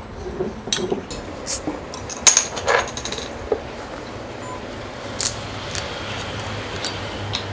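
Glass bottles and a metal bottle opener clinking and tapping as they are handled on a wooden table, with a sharp clink about two and a half seconds in the loudest. Later a soju bottle's twist-off metal cap is twisted open.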